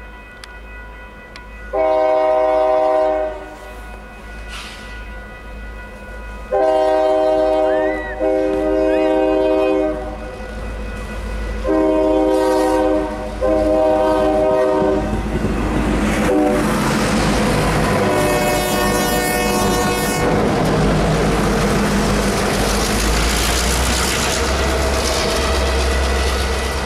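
An EMD GP38-2 locomotive's air horn sounds five long blasts, then the locomotive and the Jordan spreader pass close by with loud, steady rumble and wheel-on-rail noise.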